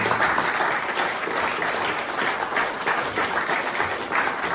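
Audience applauding, steady clapping from a seated crowd.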